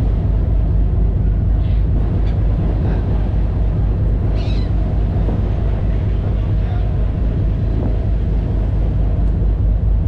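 Passenger ferry's engine running with a steady low rumble, heard from the open rear deck, with a few short high-pitched gull calls overhead, the clearest about four and a half seconds in.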